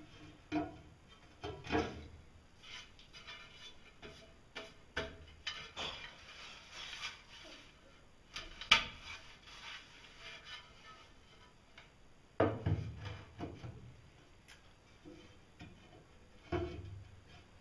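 Large flat tiles being handled and set down on a tiled counter and stood against a concrete wall: scattered knocks, scrapes and clacks. There is a sharp clack about nine seconds in, and heavier thuds about twelve and sixteen seconds in.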